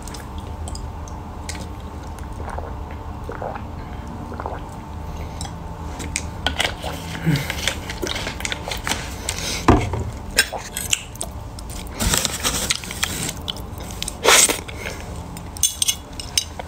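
A person eating: a metal spoon clicking and scraping in a food container, with chewing sounds. It starts with a few faint sounds and grows busy with clicks and scrapes, with one sharper knock about halfway through.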